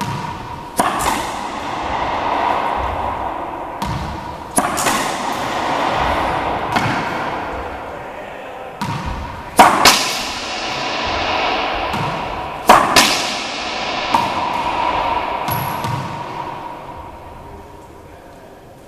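A racquetball being hit with backhand strokes in a racquetball court. Sharp cracks come every few seconds, some in quick pairs, and each rings on in the court's long echo.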